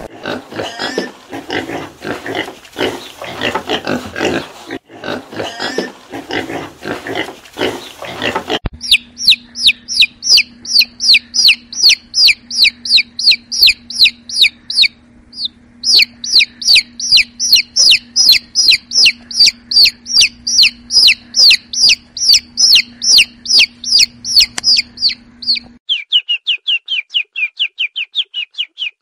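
Young pigs in a pen calling for the first several seconds. Then a brood of downy chicks peeping loudly and continuously: rapid high peeps, each falling in pitch, about three a second, over a steady low hum; near the end the peeps turn faster and a little lower.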